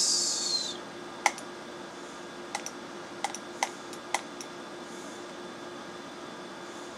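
Computer mouse button clicking, about seven short sharp clicks between one and four and a half seconds in, over a steady hum of computer fans.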